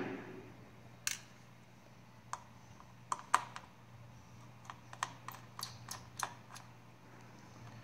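Light, scattered clicks and taps of small plastic and metal parts being handled while a laptop is taken apart, with a quicker run of them about five to six and a half seconds in.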